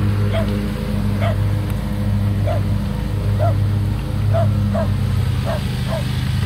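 Dogs drinking and paddling in a plastic kiddie pool, with short sounds about once or twice a second. A steady low motor drone runs underneath.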